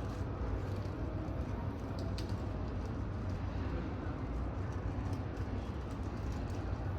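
Airport terminal ambience: a steady low rumble and hum with a soft background wash and a few faint clicks.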